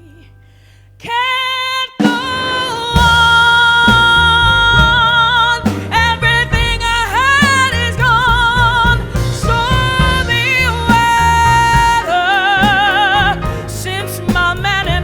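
Female jazz vocalist singing with a piano, bass and drums trio. After a quiet first second she begins a held note, and the band comes in loudly about two seconds in under her long, wavering sung notes and runs.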